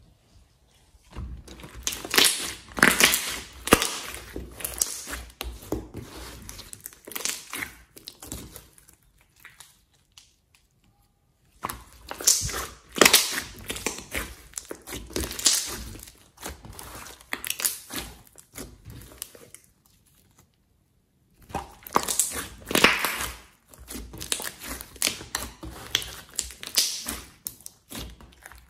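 Thick, glossy slime being squeezed, poked and folded by hand, giving many quick sticky clicks and pops. The handling comes in three bouts, with short pauses about a third and two thirds of the way in.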